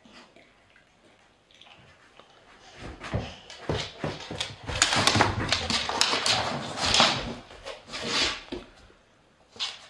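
A chocolate Labrador snuffling and nudging right at the microphone: a run of close, noisy scuffs and clicks that starts about three seconds in and dies away near the end.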